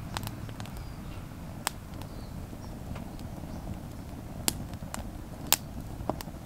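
Log campfire crackling, with about six sharp pops scattered through, the loudest about five and a half seconds in, over a low steady rumble.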